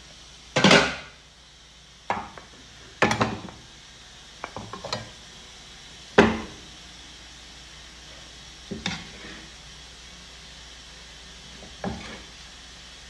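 Kitchen utensils and dishes knocking and clattering: about seven separate knocks and short clatters, spaced a second or more apart.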